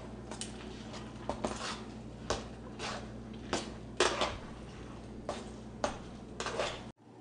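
A metal utensil scraping and clinking against a metal mixing bowl as chunky salsa of corn, pineapple and tomato is tossed, in irregular strokes roughly every half second. The sound cuts off abruptly near the end.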